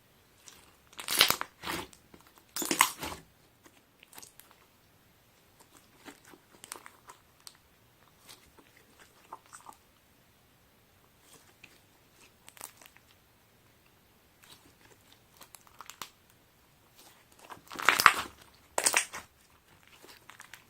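Sponge slime being squeezed and worked by hand, making crackly squishing sounds. Loud clusters come about a second in, again near three seconds and near the end, with fainter squishes between.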